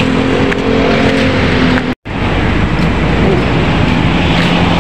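Road traffic running past: a steady roar of car engines and tyres with an engine hum. It drops out for an instant about two seconds in.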